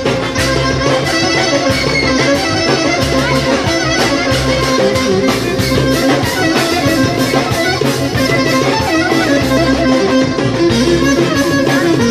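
Live Greek folk music on clarinet, bouzouki and hand percussion, playing a tune over a steady beat.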